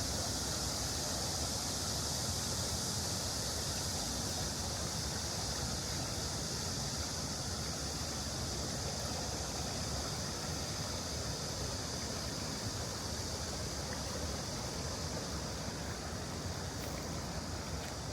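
Steady rush of shallow stream water running over stones, with a low rumble underneath.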